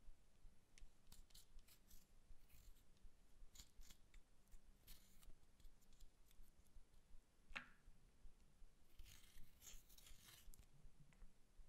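Faint scraping of pressed eyeshadow powder being dug out of its compact with a small plastic spatula, in short scratchy strokes, with one sharper click about two-thirds through and a denser run of scratching near the end.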